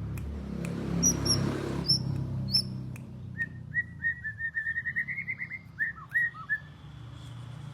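White-rumped shama (murai batu) calling. It gives four short, sharp, high whistled notes in the first couple of seconds, then a fast run of about eighteen lower chirps that climb slightly and drop off near the end. A low steady hum runs underneath.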